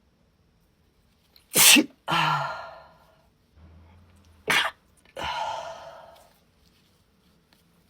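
A woman sneezing twice, about three seconds apart. Each sneeze is a sharp burst followed by a breathy, fading exhale.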